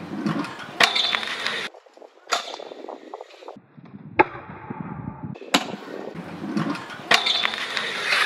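Freestyle scooter riding: hard wheels rolling on paving, broken by several sharp clacks of the deck and wheels striking down, and a scraping grind along a metal handrail near the end.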